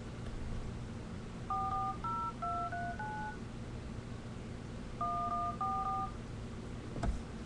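Touch-tone keypad tones as a phone number is dialled by hand: a quick run of about five beeps, a pause of over a second, then two more. A short click follows near the end.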